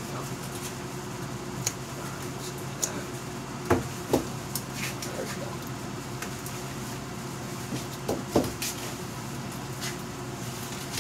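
Gloved hands working wet fiberglass strips into a fiberglass gas tank half and handling tools: scattered light knocks and clicks, with two pairs of louder short squeaks falling in pitch about 4 and 8 seconds in, over a steady low hum.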